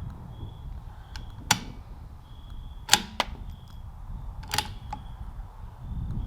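Several sharp rifle shots crack, about a second or more apart, the loudest about three seconds in, with a low wind rumble on the microphone. A faint short high chirp repeats in the background.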